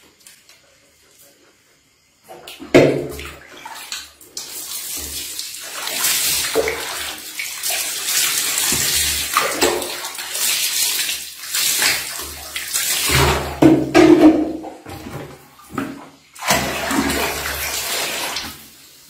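Water poured from a plastic scoop and splashing into a plastic bathing basin, in uneven surges with brief pauses, starting about two seconds in.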